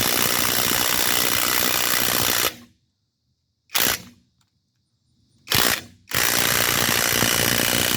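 Worx Nitro 20V brushless cordless impact wrench hammering on a lug nut in two long runs of about two and a half seconds each, with two short trigger blips between them. The wrench is set to forward, so it is driving the already-tight lug nut tighter instead of loosening it.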